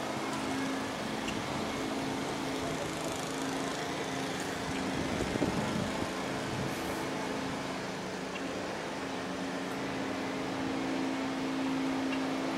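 Town street ambience: a steady mechanical hum with a low tone that fades for a few seconds around the middle and then returns, over a haze of traffic noise.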